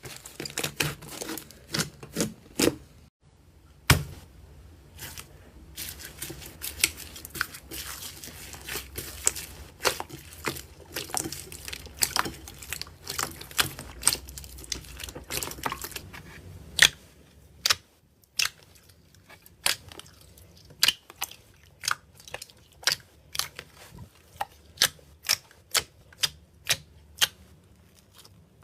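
Slime being squeezed and poked by hand, making sharp crackling clicks and pops. About two-thirds of the way through, the pops settle into a steady run of about two a second.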